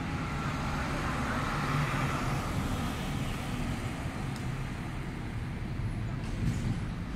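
Steady road traffic noise with a low rumble, briefly swelling louder about two seconds in.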